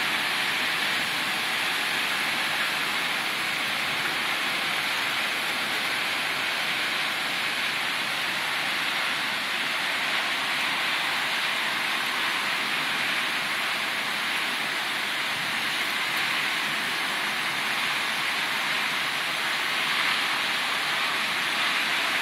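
Heavy thunderstorm downpour: a steady hiss of rain that neither builds nor eases.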